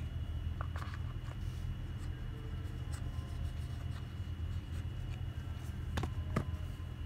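Light clicks and taps from handling an Apple Watch magnetic charging cable and its packaging tray, with two sharper clicks close together near the end. A steady low hum runs underneath.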